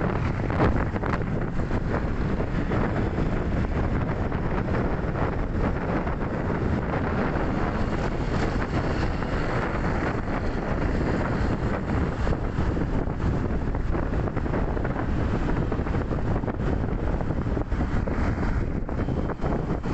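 Steady wind noise buffeting the microphone while riding in road traffic, with the running of motor scooters and cars mixed in underneath.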